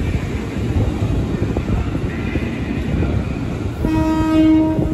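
Ex-JR 205 series commuter electric train running past the platform, its wheels and running gear rumbling on the track. Just under four seconds in, a train horn sounds once on a single steady note for about a second.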